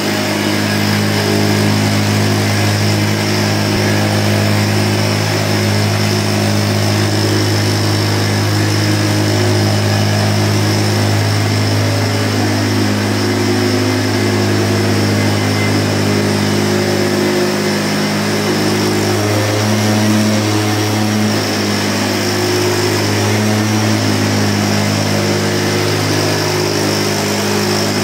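Backpack motorized mist-blower sprayer running steadily as it blows disinfectant mist, a constant engine drone that shifts slightly in pitch now and then.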